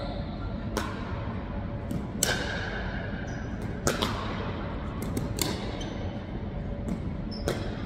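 Pickleball paddles striking a plastic ball in a rally: a string of sharp pops with ball bounces, the loudest about two seconds in, each ringing on in the hall.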